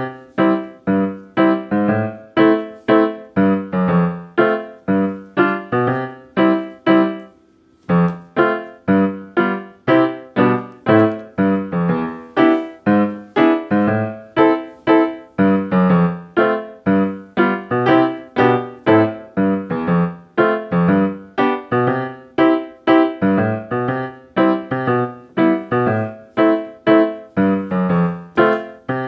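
Background piano music: a gentle melody of evenly spaced notes, with a short break about seven seconds in.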